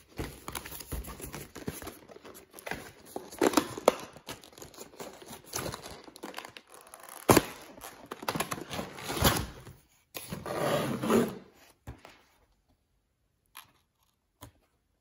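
Cardboard retail box being opened and a clear plastic clamshell tray pulled out of it: irregular rustling, scraping and crinkling of cardboard and plastic, with one sharp loud click about seven seconds in. The handling stops about twelve seconds in, leaving only a couple of faint clicks.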